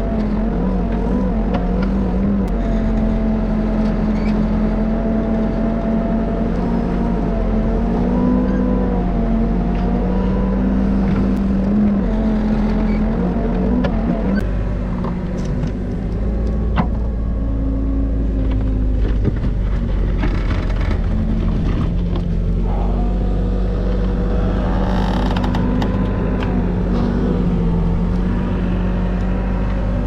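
New Holland backhoe loader's engine running steadily under load while its hydraulics work the boom and bucket to dig out a tree trunk; the pitch shifts up and down as the hydraulics take the load, with a few sharp knocks from the bucket in the dirt.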